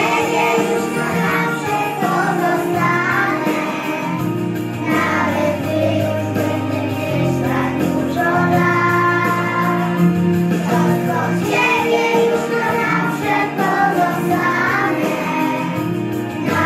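A children's song with singing over a recorded backing track with steady low notes.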